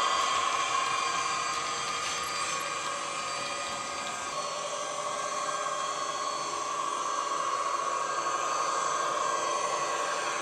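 Digital diesel engine sound of a Piko model ÖBB class 2016 locomotive, played by an ESU LokSound hi-fi decoder through a passive radiator speaker: a steady running hum that fades over the first few seconds as the model moves away, then slowly grows louder again.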